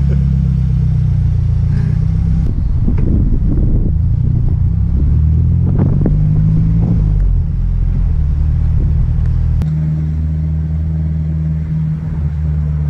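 Open-top convertible Mini driving off: engine and road noise with wind buffeting the microphone, a loud low rumble. About ten seconds in it changes abruptly to a steadier drone.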